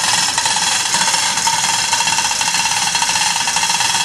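Powered chain hoist running steadily, lifting a transmission out of a car's engine bay. It gives a continuous mechanical buzz with a fast, fine rattle.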